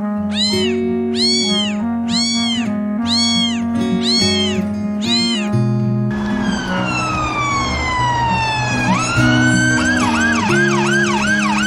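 Background music with a cat meowing six times in a row, evenly spaced. In the second half a siren takes over: one long falling wail, then a quick run of short rising-and-falling yelps.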